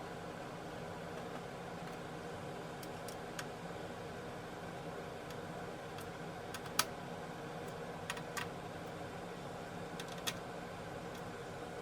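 Scattered light clicks and taps of small hardware being handled during a PC build, the sharpest about seven seconds in, over a steady background hum.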